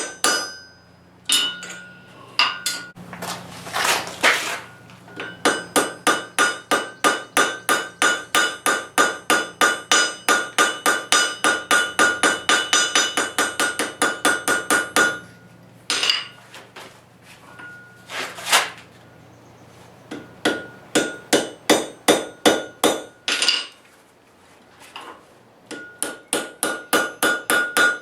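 Hand hammer striking hot metal on an anvil in steady runs of about four blows a second, each blow leaving a ringing tone, with short pauses between runs and a few brief scraping noises.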